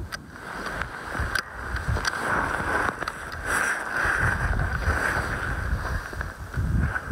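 Wind buffeting the microphone: irregular low rumbling gusts over a steady rushing hiss, with a few faint clicks.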